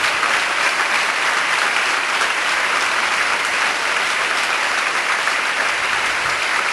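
A large audience applauding, a steady round of clapping that holds at an even level throughout.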